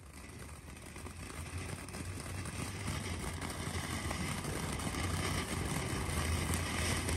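Ground firework fountain spraying sparks with a continuous rushing hiss that builds steadily louder.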